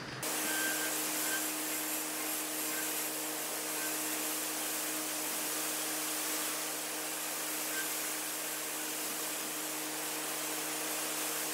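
Wood lathe running with a turning tool cutting a spinning hickory handle, a steady hiss of cutting over the motor's hum, as the half-inch tenon on the handle's end is turned.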